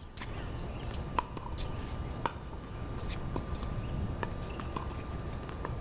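Tennis court between points: scattered light taps and clicks, two sharper ones about a second and two seconds in, over a steady low rumble, with faint voices.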